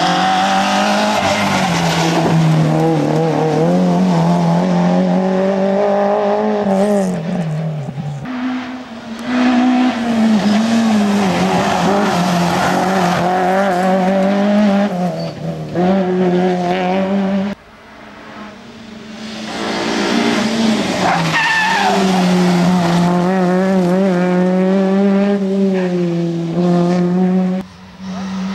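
Rally hatchbacks, a Peugeot 205 among them, driven hard through tight tarmac bends one after another. The engines are held at high revs and rise and fall between corners, with tyre squeal. The sound breaks off abruptly a few times as one car gives way to the next.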